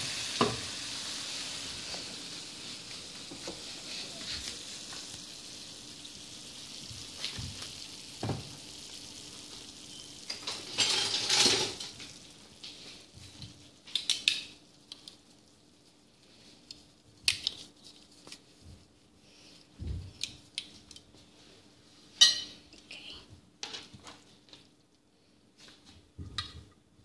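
Pasta and vegetables sizzling in a frying pan, the hiss slowly fading over the first ten seconds or so; a louder scraping rush around eleven seconds in, then scattered clinks and knocks of pan and utensil against a plate as the pasta is served.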